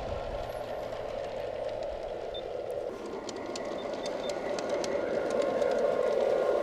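Garden-scale model diesel locomotive and its cars rolling along the track: a steady rolling rumble of wheels and motor with light clicks, growing louder over the last few seconds as the train comes closer.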